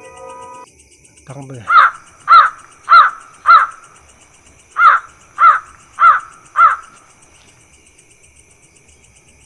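A crow cawing: two runs of four harsh caws, each a little over half a second apart, with a short pause between the runs, over a steady chirring of night insects. A brief falling swoosh comes just before the first caw.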